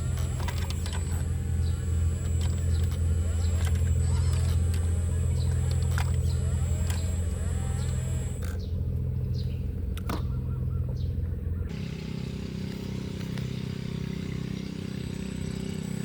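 Sumitomo SH120A3 excavator's diesel engine running steadily while digging, with scattered knocks and clanks. About twelve seconds in, the engine note changes and gets a little quieter.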